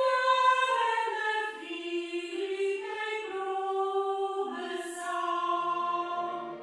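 A choir singing a slow melody in long held notes, stepping from note to note about once a second; it breaks off near the end.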